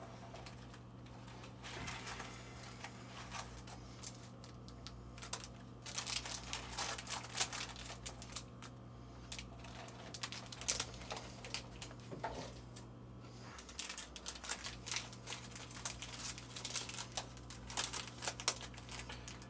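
Scattered light clicks, taps and rustling of makeup brushes and their packaging being handled, over a steady low hum.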